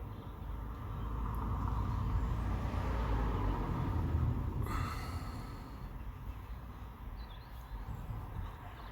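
Low rumble that swells and then fades over several seconds, like a vehicle going by, with a brief high-pitched squeak about five seconds in.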